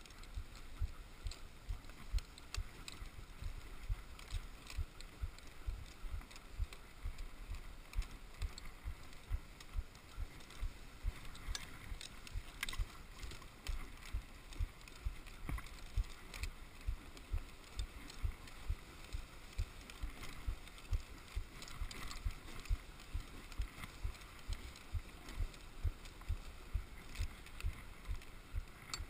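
Dog sled running over snow: a steady scraping hiss from the runners, with regular low knocks about twice a second.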